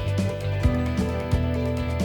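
Background music: a steady beat and plucked, guitar-like notes.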